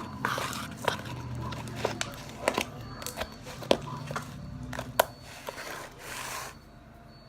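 Slime being squeezed and stretched by hand, with irregular sharp pops and clicks among softer squishing and crackling.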